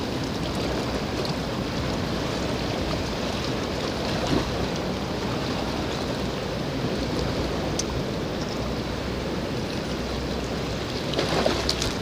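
Steady rush of wind and sea surf at the shoreline, rising slightly near the end.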